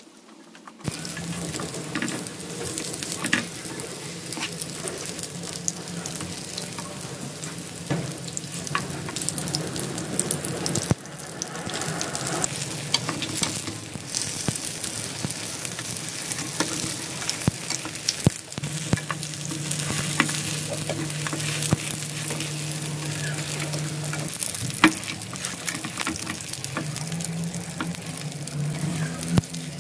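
Egg-coated tofu-and-Spam sandwiches sizzling steadily as they fry in olive oil in a frying pan; the sizzle starts about a second in. Spatulas scrape and tap against the pan now and then as the blocks are turned.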